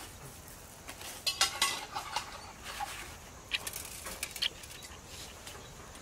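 Hands pressing a fish steak into a steel bowl of coarse, dry, flaky crumb coating: crunchy rustles and scrapes in short clusters, busiest between one and two and a half seconds in.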